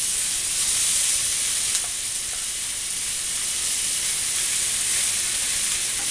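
Chicken pieces coated in guajillo chile sauce sizzling as they fry in hot fat on a wide griddle pan: a steady frying hiss as the chicken is set down to brown.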